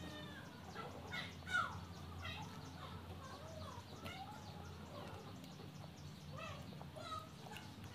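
Animal calls in the background: many short chirping calls that rise and fall in pitch, with one sharp click about one and a half seconds in.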